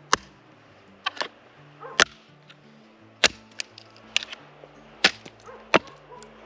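Freshly sharpened axe chopping firewood into smaller pieces: a string of sharp cracking strikes at uneven intervals, about one a second.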